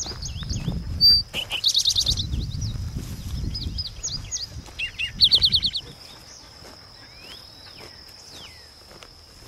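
Songbirds chirping and trilling, with a loud rapid trill about two seconds in and another around five seconds, over a steady high insect buzz. Footsteps on a gravel path thud underneath in the first half; after about six seconds the birds thin out and mostly the insect buzz remains.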